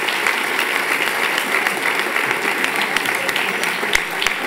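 Large seated audience applauding: dense, steady clapping that thins near the end into a few separate claps.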